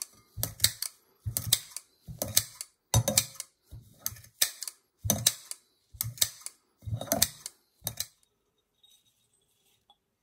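Kitchen scissors snipping strips of cramp bark (Viburnum opulus) into small pieces. About ten bursts of crisp snipping come roughly once a second, then the cutting stops about eight seconds in.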